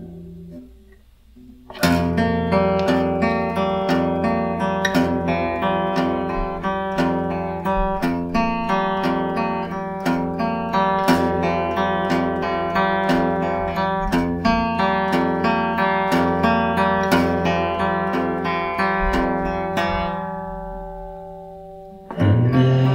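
Guitar playing a picked blues passage: the notes start about two seconds in, ring on, and fade out near the end, when a louder sound cuts in.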